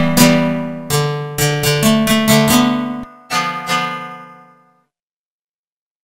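A guitar-like plucked-string patch playing a short run of notes through a delay effect plugin set to very short delay times of a few milliseconds. A last note about three seconds in rings out and fades to silence.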